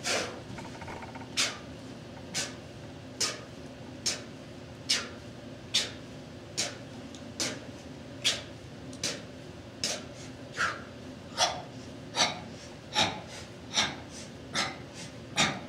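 A man's short, forceful exhalations, one with each knuckle push-up, in an even rhythm of a little more than one a second.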